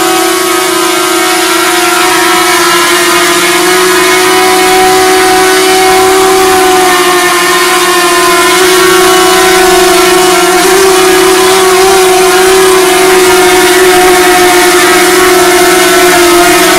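DJI Mavic Mini quadcopter in flight: its four motors and propellers give a loud, steady, high hum, wavering briefly in pitch about ten seconds in.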